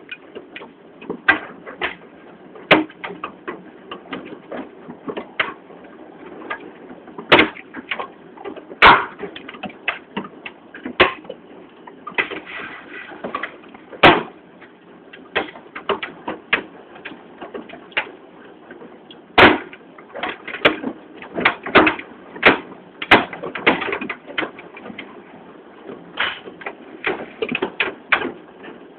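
Hailstones striking a hard surface: irregular sharp knocks, a few of them loud, over a steady hiss of falling hail.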